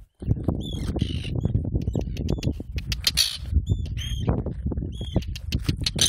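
Arctic terns calling while they dive at an intruder to defend their nests: repeated short, high, hooked calls and two longer harsh screams, over a steady low rumble.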